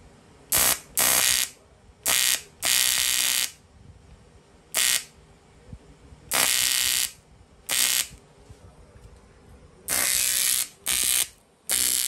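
AC TIG welding arc on aluminium, buzzing in about ten short tack-weld bursts, each from a fraction of a second to nearly a second long, with quiet gaps between them.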